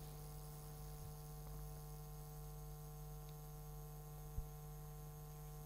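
Steady electrical mains hum on the audio track, with a brief low thump about four and a half seconds in.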